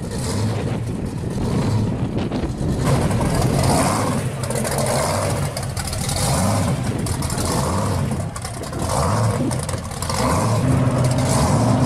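Supercharged V8 of a pro street Camaro running loud and rising in revs several times as it pulls away.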